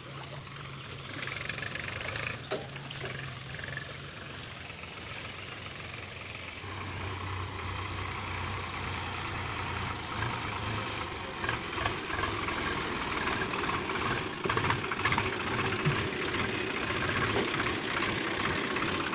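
Swaraj tractor diesel engine running, a steady idle at first. About a third of the way in, it changes to a lower, fuller engine note that grows gradually louder, with a few knocks and clanks in the middle.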